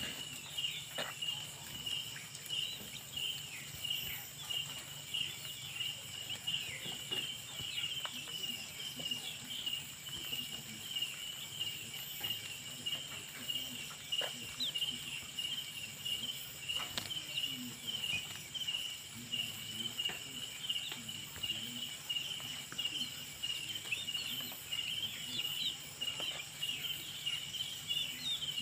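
Crickets chirping steadily in a high, rapidly pulsing trill, with scattered light taps as chickens peck winged termites off the ground.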